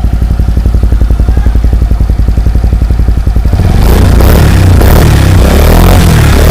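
Suzuki Skydrive Sport scooter's single-cylinder four-stroke engine breathing through an Exos X6 aftermarket racing exhaust: it idles with an even, rapid putter, then is revved up hard and held high, much louder, a little under four seconds in.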